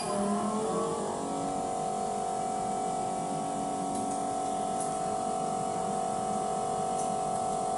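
A short electronic beep from the pulse-heat flex press's touchscreen, then the machine starts up with an electric hum that slides in pitch for about a second before settling into a steady tone.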